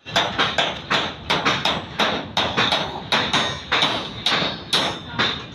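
Hammering on a building construction site: rapid, sharp blows, about three or four a second in an uneven rhythm, each with a bright metallic ring.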